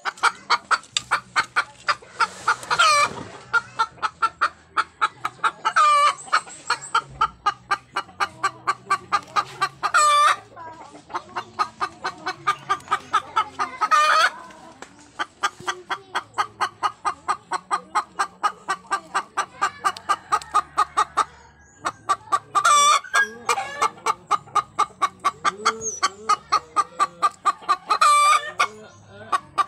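Chickens clucking: a fast, even run of short clucks, about five a second, with a louder call every few seconds.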